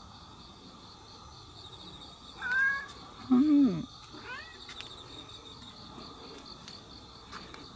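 Domestic cat meowing: a short rising meow about two and a half seconds in, a louder, lower call right after, then another brief rising meow.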